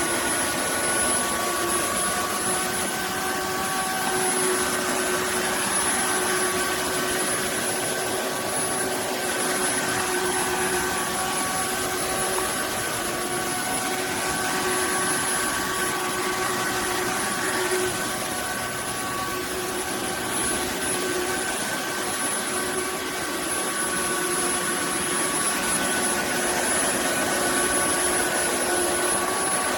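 Roborock F25 GT cordless wet-dry vacuum mop running steadily in Max mode: a motor whine with a thin high whistle over an even rush of air and roller noise.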